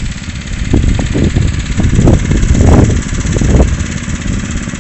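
Lawn tractor engine running steadily, with uneven swells in the low rumble.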